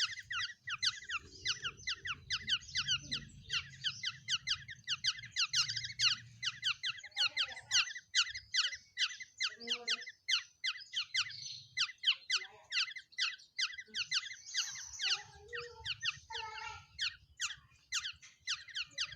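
Caged songbird chirping without a break, a rapid run of short, high, downward-sweeping notes at about five a second.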